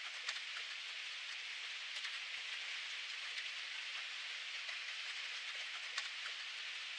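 Steady rainfall: an even hiss of rain with scattered sharper drop ticks.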